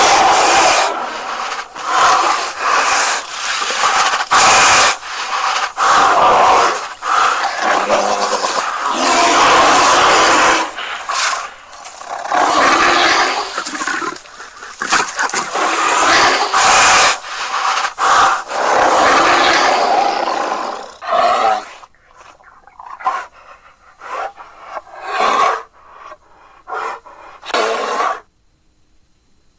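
Black bear calls: a run of loud, noisy calls, close together for about twenty seconds, then shorter and more spaced out until they stop near the end.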